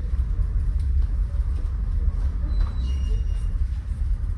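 Steady low rumble on board a large passenger ferry under way, with a few faint, brief high tones a little past the middle.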